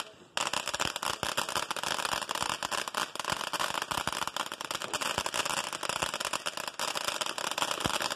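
Ground fireworks fountain spraying sparks with a dense, continuous crackle of rapid small pops, after a brief break right at the start.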